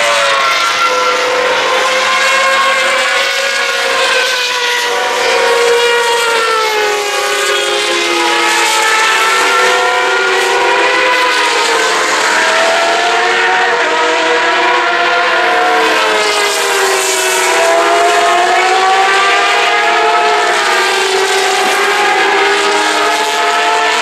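Several open-wheel racing cars' engines at high revs, overlapping as the cars pass through a corner. Their pitches rise and fall with gear changes and as each car goes by.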